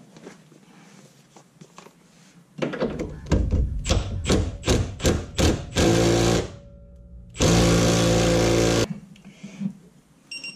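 Cordless impact wrench running a nylock nut onto the bolt of an anti-roll bar end link. About two and a half seconds in it gives a string of quick separate hits, then hammers in a short burst and, after a brief pause, a longer burst that ends near the end.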